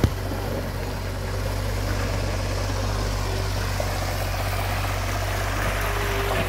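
Diesel engine of a mini excavator running steadily with a low hum, over the constant rush of a shallow river running over rocks. A single sharp knock comes right at the start.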